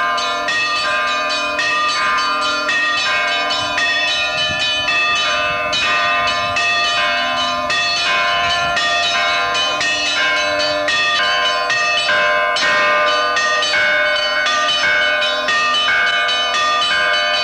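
Orthodox church bells rung by hand, a bell ringer pulling the clapper ropes: a rapid, unbroken peal of many strokes from several bells of different pitches, each one ringing on. A lower bell sounds under the peal through the first half.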